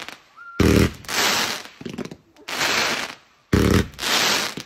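Firework hissing out in repeated half-second spurts, with a loud low pop about half a second in and another about three and a half seconds in.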